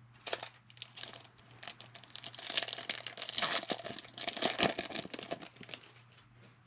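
Foil wrapper of a 2020 Bowman baseball card pack crinkling and tearing as it is ripped open by hand: a dense run of crackles that starts just after the beginning, is loudest in the middle and dies away near the end.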